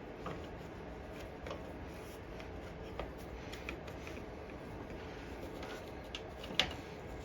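Small parts and tools being handled: scattered light clicks and rustles, with one sharper click about six and a half seconds in.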